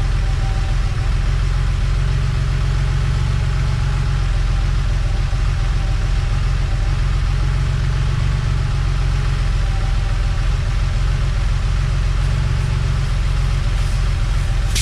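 Air-cooled flat-six engine of a 1987 Porsche 911 Carrera idling steadily, a continuous low rumble.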